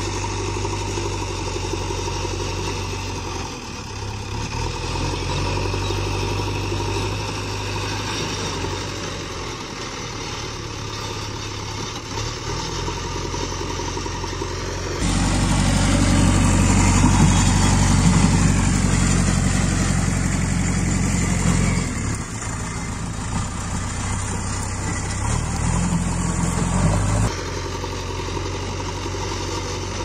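JCB 3DX backhoe loader's diesel engine running as the machine pushes and levels soil with its front bucket, the note rising and falling with the work. About halfway through it turns louder and closer for some ten seconds, then drops back.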